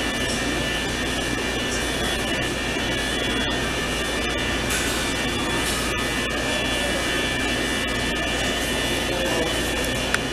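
Steady machine drone with several constant high whining tones over a low hum, unbroken throughout; a single small click near the end.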